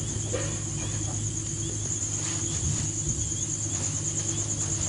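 Crickets trilling in a steady high chorus, over a low continuous hum.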